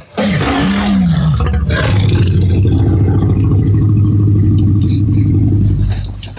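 Film sound effect of a Tyrannosaurus rex: a deep, steady rumbling growl that holds for several seconds and fades near the end.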